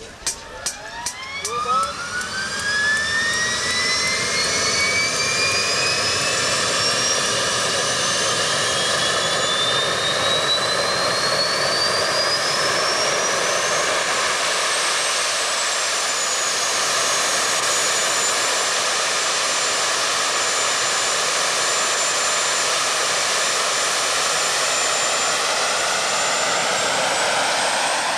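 BD-5J Microjet's small Microturbo TRS-18 turbojet starting up. A few rapid clicks open it, then a whine climbs steadily in pitch for about fourteen seconds as the engine spools up. The whine overshoots a little and settles to a steady high whine at idle, rising slightly again near the end.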